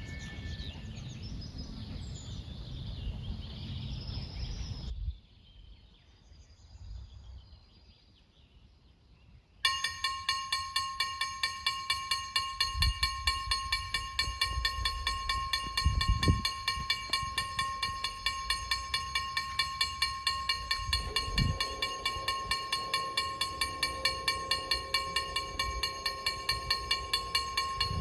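Birds and outdoor background, then about ten seconds in a KLD-40 level-crossing warning bell starts ringing suddenly: a fast, even series of ringing strikes, about three a second, signalling that the crossing has activated for an approaching train. A lower steady hum joins about three-quarters of the way in.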